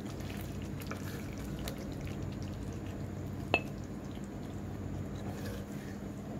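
Thick prawn and taro-leaf curry being ladled from a wok into a ceramic bowl: soft wet scooping and plopping with small ticks over a steady low hiss, and one sharp clink of the ladle against the bowl about three and a half seconds in.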